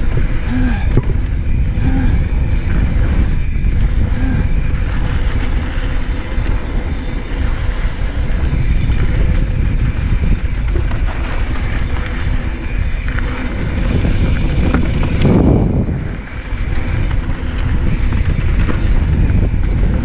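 Polygon Square One mountain bike ridden fast over a rough dry dirt trail: a continuous rumble of tyres on dirt and stones and the bike rattling over bumps, mixed with wind rushing over the microphone. It grows louder about fifteen seconds in, then dips briefly.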